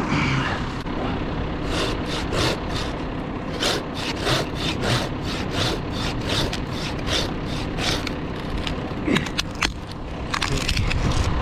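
Hand pruning saw cutting through a white oak branch in regular strokes, about three a second, for several seconds; it stops and is followed by a few scattered cracks and scrapes.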